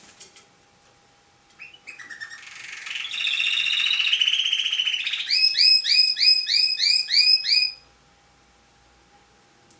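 Domestic canary singing: a fast rolling trill that swells in loudness, then a run of repeated down-slurred notes at about four a second, ending about eight seconds in.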